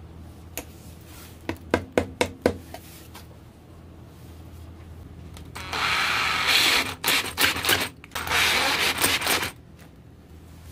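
A handful of sharp taps, then a power drill driving screws through a steel lathe faceplate into a juniper log, running in several bursts of a second or two with short stops between them.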